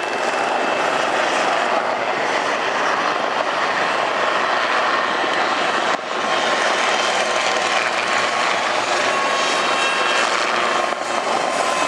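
Westland Lynx helicopters flying low overhead, with a steady rotor and turbine noise and a faint high turbine whine.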